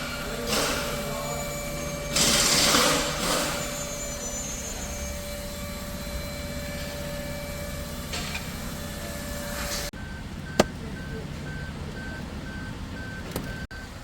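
Workshop handling noises, rustling and scraping in a few bursts over a steady hum, then a fast, even electronic beeping of about three beeps a second from about ten seconds in, with one sharp click.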